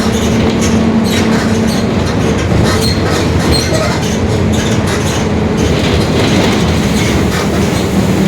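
Mercedes-Benz OF-1721 Bluetec 5 bus running under way, with a dense rattle of clicks from the Marcopolo Torino S body. Over it is a steady hum from the growling rear differential. The hum weakens in the middle and comes back stronger near the end.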